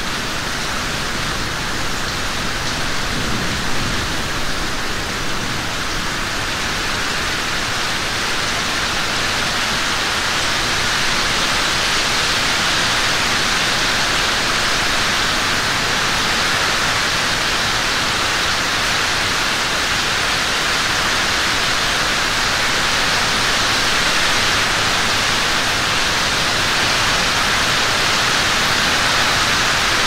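Steady, dense rainfall: an even hiss of countless falling drops, growing a little louder after the first few seconds.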